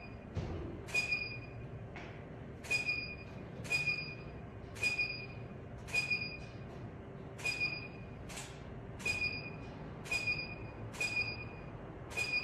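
Camera shutter firing repeatedly, about once a second and sometimes twice in quick succession, each shot followed by a short high beep as the studio flash recycles. A faint steady hum runs underneath.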